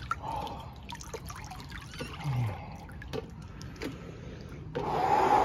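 Water sloshing and lapping around a man moving about in a cold swimming pool, with small splashes throughout and a louder splash lasting about a second near the end.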